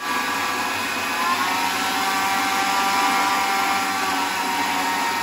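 Electric blender on a food-processor base running at speed, a steady loud motor whine as it blends chunks of tomato and onion in a little water. It starts suddenly at the beginning.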